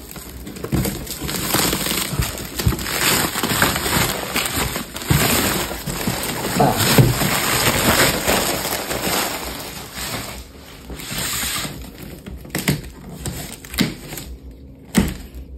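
Plastic shipping wrap and a large cardboard box being handled and torn open: rustling, crinkling and scraping with irregular knocks, busiest for about ten seconds and then quieter.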